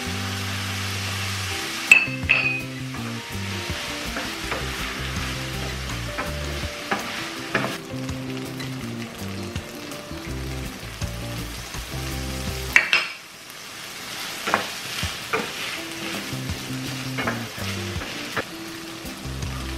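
Crumbled tofu sizzling in a hot nonstick frying pan while a wooden spatula stirs it, with scraping and sharp knocks against the pan, the loudest about two seconds in and again around thirteen seconds.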